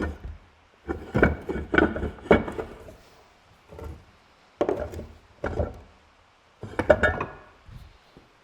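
Heavy metal machine parts being handled and set down on a workbench: a series of clunks and clatters, some with a brief metallic ring near the end.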